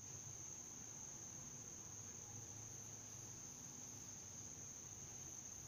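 A faint, steady, high-pitched cricket trill over a faint low hum.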